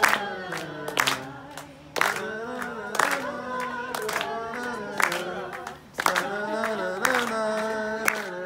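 A group of people singing a wordless tune together and clapping in time, about one clap a second.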